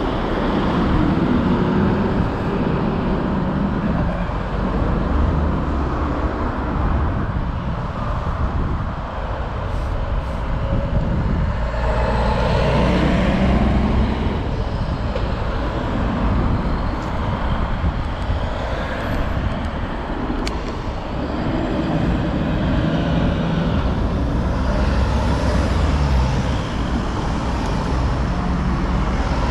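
City road traffic: cars and buses driving past, engine and tyre noise over a steady low rumble, with louder passes at the start, about halfway and near the end.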